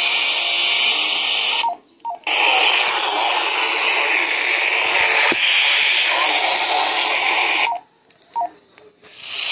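Radio static: a steady hiss from a receiver with no signal. It cuts out briefly about two seconds in and again for over a second near the end, with a few faint short beeps in the gaps.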